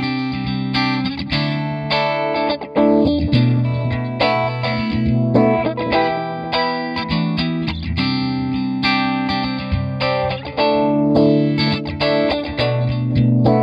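Clean electric guitar playing chords through an RFO Electronics Waterfall four-phase chorus/vibrato pedal set to chorus, with the depth almost full and the speed almost off. A new chord is struck every second or two.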